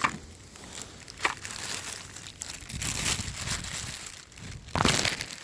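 Rustling and handling noise as a tool is moved about, with a sharp knock just after the start, another about a second in, and a louder scrape or rustle near the end.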